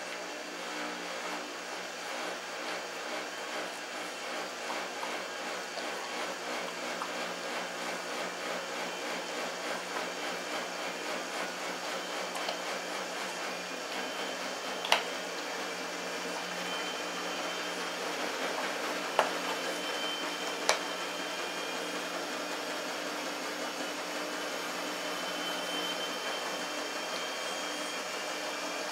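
Shar-Pei puppy chewing raw chicken ribs, bone crunching with three sharp cracks in the second half, over a steady mechanical hum.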